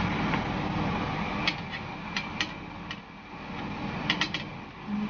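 Metal baking trays being slid along an oven's rack rails. The rattle is followed by a few sharp metallic clicks and scrapes, coming in two small clusters.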